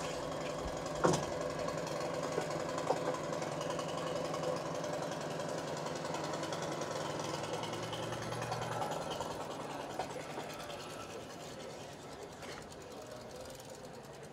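An engine running steadily with a low hum and a few light knocks and clicks; part of the hum stops about nine seconds in and the sound then grows quieter.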